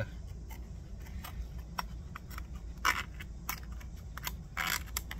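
Metal tools and parts clicking and scraping as a thin metal shim is worked into a motorbike's rear wheel hub, with a louder scrape about three seconds in and a longer one near the end.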